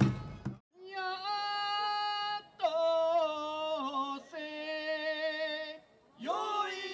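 Drum-backed music cuts off just after the start. After a brief silence a single voice sings unaccompanied in long held notes, three sustained phrases and then a sliding, wavering phrase near the end, as a bon-odori song begins.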